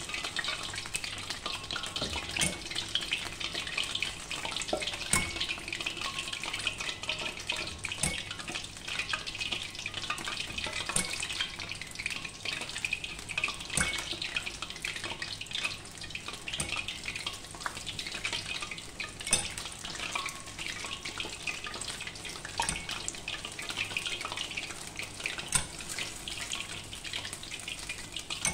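Spoonfuls of gemat dough frying in a wok of hot oil: a steady crackling sizzle, with a sharp click every few seconds.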